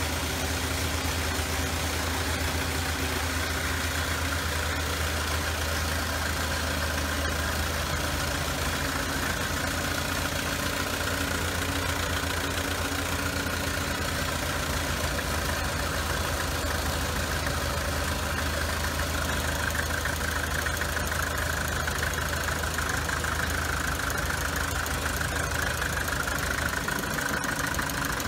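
Restored vintage crawler tractor engine idling steadily at an even speed.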